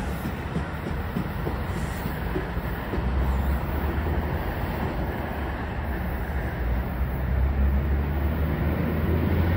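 NJ Transit multilevel commuter train rolling away along the track, a steady low rumble of wheels on rail.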